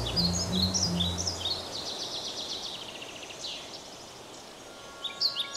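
Birds chirping and twittering in quick repeated calls, an outdoor birdsong ambience. A few low held notes stop about one and a half seconds in. The chirping thins out in the middle and comes back busier near the end.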